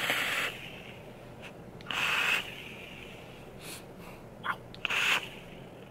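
A man's hard breaths through an MCV Warhead 30mm rebuildable dripping atomizer with its airflow wide open, and out again as he blows out the vapour: four short breathy hisses, the last two close together near the end.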